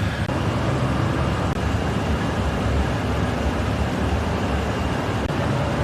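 Steady low rumble of road traffic, engines and tyres, without clear single events.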